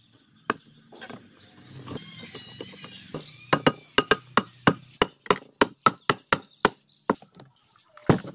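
Rapid, evenly spaced sharp knocks on the two aluminium crankcase halves of a Yamaha Serow 225 engine, about a dozen at some three to four a second, as the halves are tapped together to seat them. A few softer knocks come before, and a heavier knock comes near the end.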